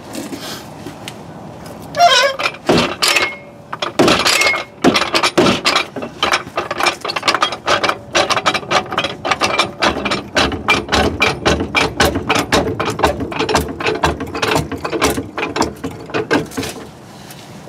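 Hydraulic floor jack being pumped up under a car, its pump and handle mechanism clicking rapidly, several clicks a second, after a few louder knocks early in the run. The clicking stops near the end.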